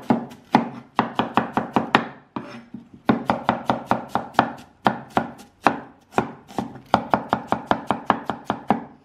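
Knife slicing onions on a wooden chopping board: quick, even chops of the blade into the board, about five a second, with short breaks about two seconds in and again around six seconds in.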